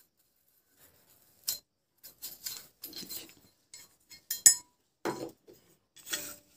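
Toothbrush scrubbing the removed burner body of an LPG gas stove in short, scratchy strokes, with light metallic clinks as the part is handled. A sharp clink about four and a half seconds in is the loudest sound.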